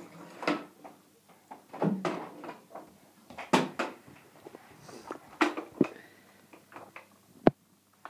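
A toddler pushing a toy plastic upright vacuum cleaner, with irregular plastic knocks and clatters as it bumps along the floor, and one sharp click near the end.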